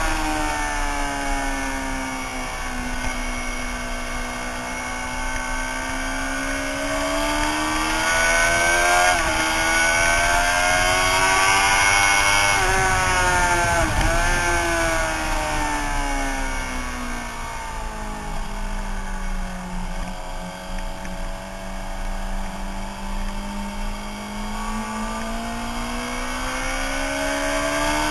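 Suzuki sportbike engine running on track, its pitch rising and falling as the bike speeds up and slows, with short breaks in the note around 9 and 14 seconds in. Wind rush runs under it.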